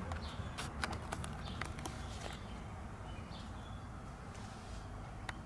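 Handling of a resin-soaked fiberglass cloth patch: a run of light clicks and taps over the first two seconds or so and one more near the end, over a low steady background rumble.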